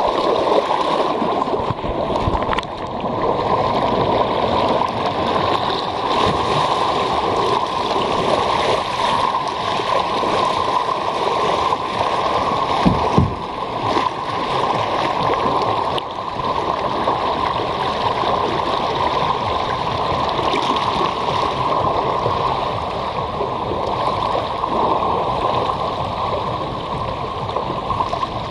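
Water rushing and splashing along an open water-slide flume as a rider slides feet-first down it: a steady wash of water noise with a brief knock about halfway through.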